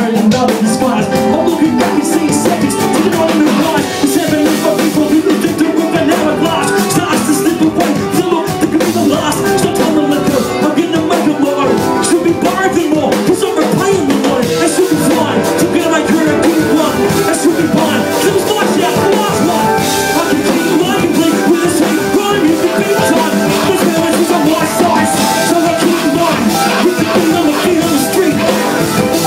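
Live hip hop played by a band: drums, electric guitar and a DJ on decks, with an MC rapping into a microphone over them. The music is loud and continuous.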